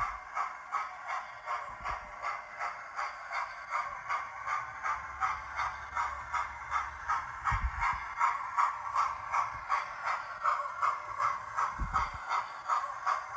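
Hornby Mallard model's TTS sound decoder playing a steam locomotive's rhythmic chuffing through its small onboard speaker as the engine runs, about three beats a second and thin-sounding. There are a couple of short low thumps.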